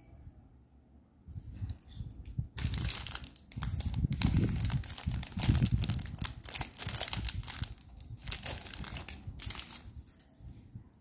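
Thin translucent packing wrapper crinkling and rustling as a bracelet is pulled out of it. The crinkling starts about two and a half seconds in and dies away near the end, with some dull handling bumps around the middle.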